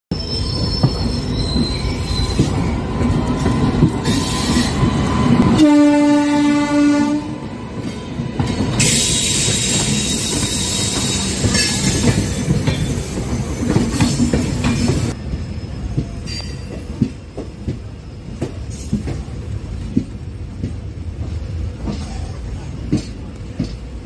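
Trains on the move: wheels rumbling and clattering on the rails, with one horn blast of about a second and a half around six seconds in. Then a high hiss and squeal as a line of passenger coaches rushes past on the next track, easing off after about fifteen seconds.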